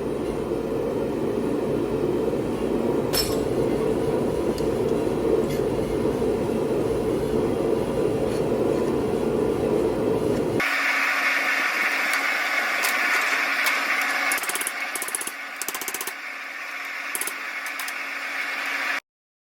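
Gas forge burner running with a loud low rumble. About ten seconds in the sound cuts to a higher, steadier hiss with a few light metallic clinks, then stops abruptly near the end.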